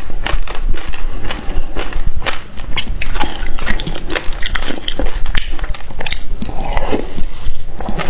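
Close-miked eating of passion fruit: a dense run of wet biting and chewing sounds, with many small clicks and smacks.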